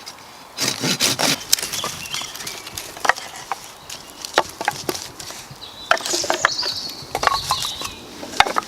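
Firewood being split and broken up by hand: an irregular run of knocks, cracks and splintering of wood.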